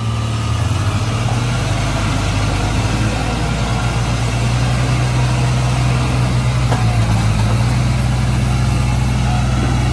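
Heavy diesel engines of a Tata truck tractor and a backhoe loader running loud and steady as they work a loaded trailer through deep mud.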